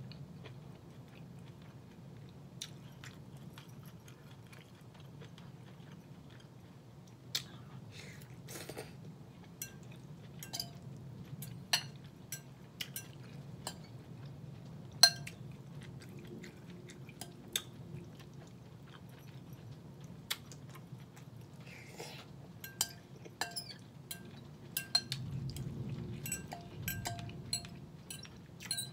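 Chewing, with a metal fork clinking and scraping against a glass bowl as food is picked up; the sharper clinks ring briefly. A low rumble swells near the end.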